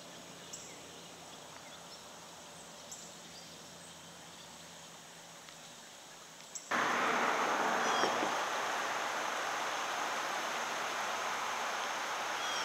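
Faint outdoor ambience with a few brief high chirps, then, about two-thirds of the way in, a sudden change to the steady, much louder rush of fast-flowing floodwater.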